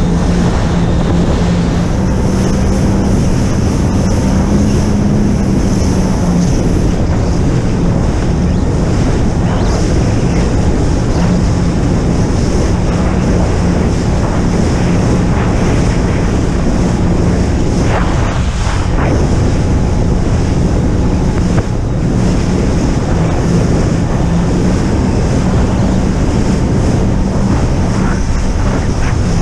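Jet ski engine running at a steady pitch, with wind buffeting the microphone and water rushing past the hull.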